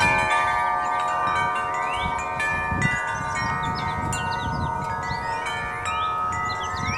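Wind chimes ringing, many overlapping notes sustained at different pitches, with birds calling in short rising whistles a few times.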